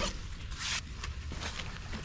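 Farrier's hoof rasp on a horse's hoof: the run of rasping strokes stops at the start, then one short rasp scrape about half a second in, followed by faint rustling.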